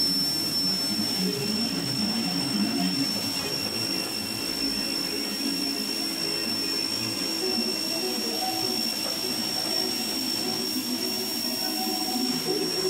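Ryobi electric pressure washer running and spraying concrete: the jet hisses against the slab under a steady high-pitched whine, with a rough, churning low rumble beneath.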